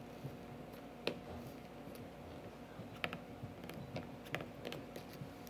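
A fingertip pressing and sliding along the tab of a plastic screen-protector install tray, giving a few faint, irregular sharp clicks and taps of plastic.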